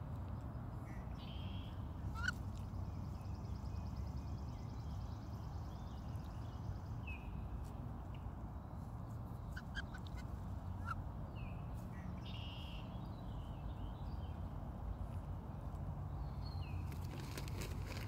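Wood ducks calling with short rising squeaky whistles, one about two seconds in and another around eleven seconds, with a few faint chirps between, over a steady low rumble.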